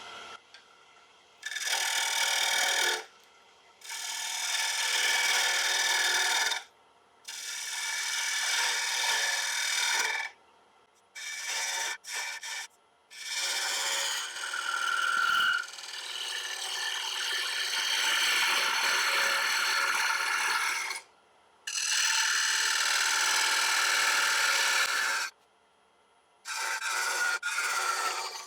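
Bowl gouge cutting the inside of a spinning wet black locust bowl on a wood lathe: about eight cutting passes, each a steady hiss and scrape lasting one to five seconds, with short pauses between them.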